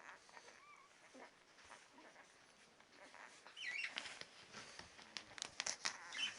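Ten-day-old Labrador puppies making faint squeaks and whimpers, which get louder from about halfway through, mixed with small clicks and rustles.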